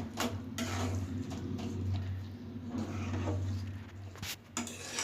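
A spoon stirring and knocking in a pan of thick pineapple chutney cooking on the stove, with scattered sharp clicks over a steady low hum.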